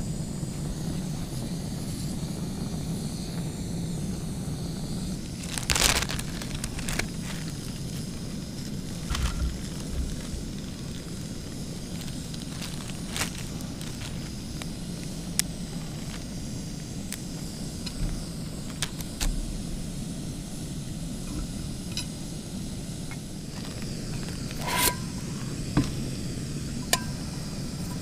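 Sausages frying in a pan on a camp cookstove: a steady low burner rush with crackle, broken by scattered clinks and knocks of a utensil on the pan. The loudest clatter comes about six seconds in, and a short ringing metal clink comes near the end.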